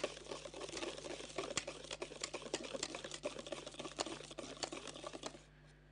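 Wire hand whisk beating eggs and sugar in a stainless steel bowl, its wires clinking against the metal about three times a second, then stopping near the end. The eggs and sugar are being whipped into a foamy sponge-cake batter.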